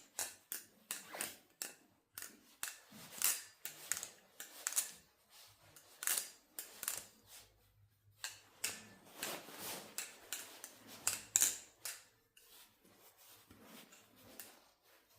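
A steel balisong butterfly knife being flipped: irregular sharp metallic clicks and clacks as the handles swing round and strike each other, several a second. There is a short pause about eight seconds in, and the clicks are fainter near the end.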